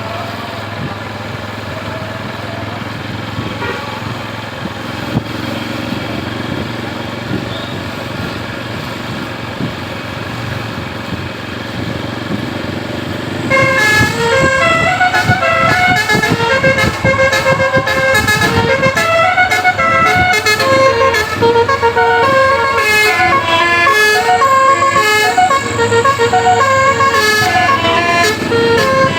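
Bus's Basuri multi-tone 'telolet' air horn playing a fast tune of stepped notes, starting about halfway in and running on loudly, over the low rumble of the bus engine.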